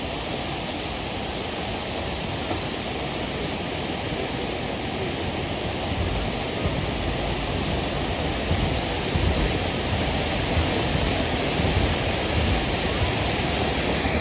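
Ground fountain firework spraying sparks with a steady rushing hiss that grows a little louder, with small scattered crackles from about halfway through.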